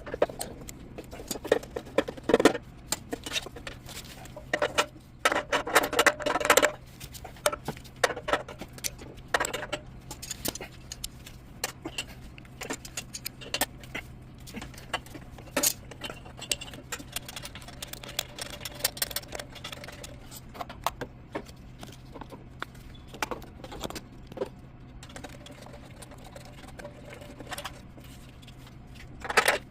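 Irregular metallic clinking and rattling, like tools and small metal parts being handled, over a steady low hum from running equipment. The clatter comes in busier spells a few seconds apart.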